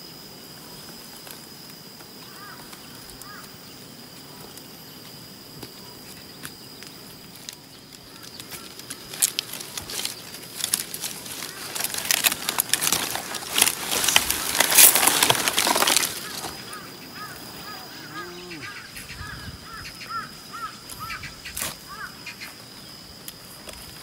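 Stiff, spiky pineapple leaves rustling and crackling with sharp snaps as pineapples are picked from the plants by hand. The crackling builds about eight seconds in, is loudest in the middle and dies down after about sixteen seconds.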